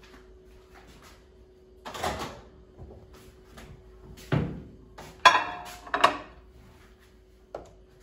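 Knocks and clinks of a glass Pyrex baking dish being slid into a microwave oven, one clink ringing briefly, followed by a knock about six seconds in as the microwave door is shut.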